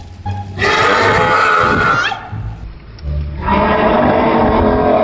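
A man's drawn-out vocal noises amplified through a handheld megaphone: two long, loud, buzzy blasts, the first ending in an upward bend in pitch, the second starting about three and a half seconds in.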